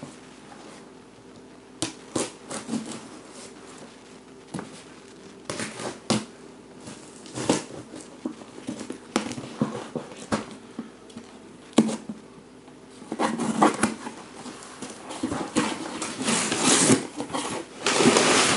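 A cardboard mystery box being opened and its contents handled: scattered taps and knocks, then stretches of crinkly rustling of packaging and bags in the second half.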